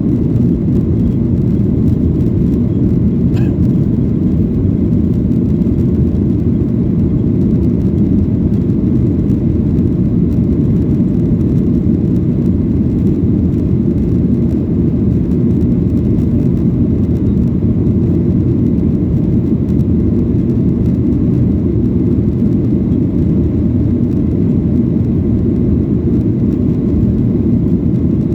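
Steady low drone of an airliner cabin in flight: jet engine and airflow noise heard from inside the cabin, even and unchanging.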